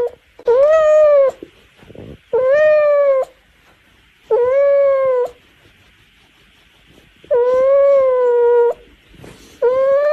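A cat yowling in five long, drawn-out meows, each about a second long and held at a fairly level pitch, repeated about every two seconds.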